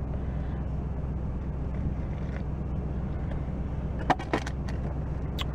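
Car engine idling steadily, heard from inside the cabin as a low hum, with two light knocks a quarter second apart about four seconds in.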